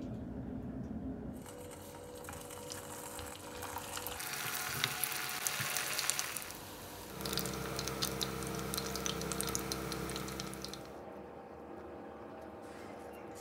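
Kibbeh deep-frying in hot oil, sizzling with many small crackles and pops. The sizzle starts about four seconds in and dies away near the end.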